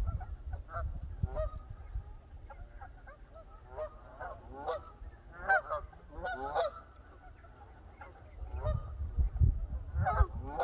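A flock of Canada geese honking, with many overlapping calls that come in bunches, densest in the middle and again near the end. Bouts of low rumble, strongest late on, run under the calls.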